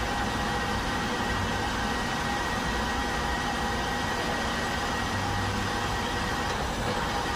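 Metal lathe running with its chuck spinning: a steady machine hum with a faint high whine.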